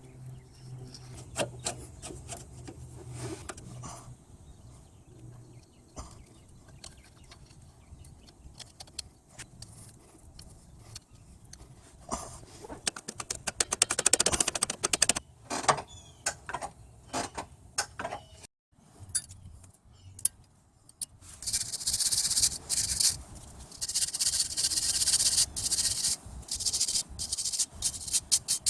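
Hand work on rusty brake parts: scattered metal clicks and knocks, then a stretch of rapid scraping strokes like a wire brush scrubbing rust, followed by several long loud hissing bursts of spray near the end.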